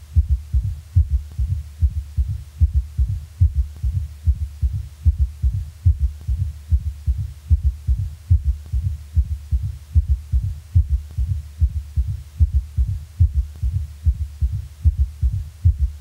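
Recorded human heart sounds heard through a stethoscope, about one beat a second. Each beat is a cluster of low thuds: a quadruple rhythm in which the third and fourth heart sounds are present along with the first and second.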